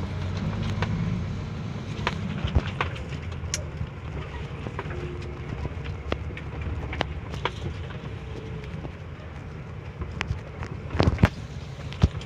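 Vehicle running and driving, heard from inside the cab: a steady low engine and road rumble with scattered clicks and knocks, a cluster of louder knocks about eleven seconds in.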